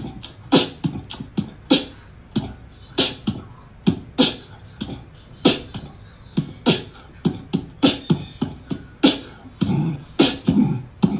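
Beatboxing: a quick, steady beat of mouth-made kick-drum thuds and hissy snare and hi-hat hits.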